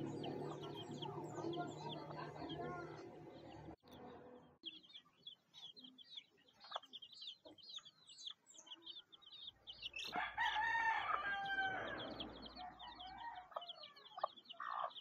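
Chickens: a steady stream of quick, high peeps from chicks, with a rooster crowing once, for about two seconds, around two-thirds of the way through.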